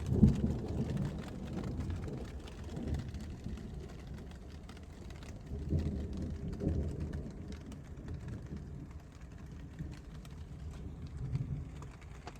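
Steady rain falling, with low rolls of thunder that swell near the start, in the middle and again near the end.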